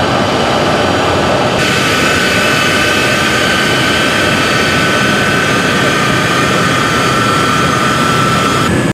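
Engines of a U.S. Air Force transport aircraft running loudly and steadily, a dense rush of noise. About one and a half seconds in, the sound turns abruptly brighter, with a steady high turbine whine on top.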